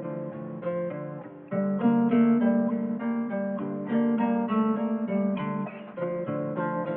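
Background music: acoustic guitar picking a repeating pattern of notes.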